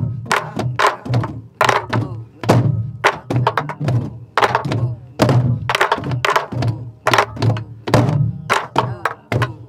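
A group of sori-buk (pansori barrel drums) beaten together in a jangdan rhythm pattern. Stick strokes on the wooden shell and rim knock sharply, and hand and stick strokes on the hide heads give a low boom. The strokes fall unevenly, several a second, in the drum pattern's grouping.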